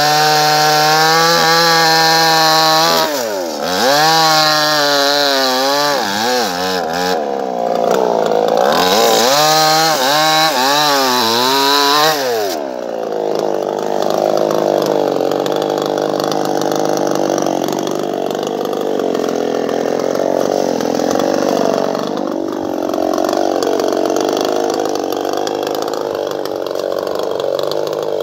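Chainsaw running at high revs, its pitch sagging and recovering several times as it takes load in the wood. About twelve seconds in, the clear whine gives way to a rougher, lower, uneven sound that carries on to the end.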